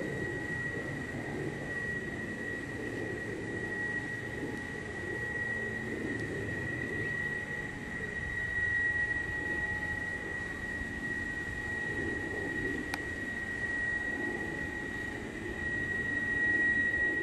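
RAAF F-111's twin TF30 turbofan engines running on the ground: a steady jet rumble with a high whine over it.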